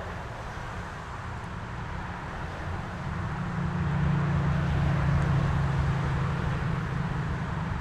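Engine of a wood-processing machine running steadily with a low hum. It grows louder and fuller about three and a half seconds in.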